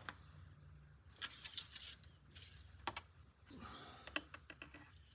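Short clicks, light knocks and brief rustles from hands handling small hard objects, scattered irregularly.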